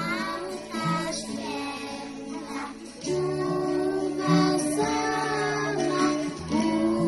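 A group of young children singing a Christmas song together in unison, with instrumental accompaniment.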